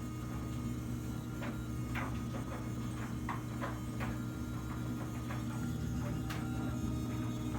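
Low, steady buzzing hum from a hot, switched-off Vespa GTV 300ie scooter, which the owner thinks is coolant moving through the thermostat. A run of light clanks from a clothes dryer sounds in the middle, with one more a few seconds later.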